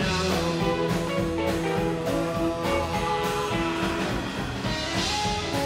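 Live rockabilly band playing: guitars over a steady drum beat.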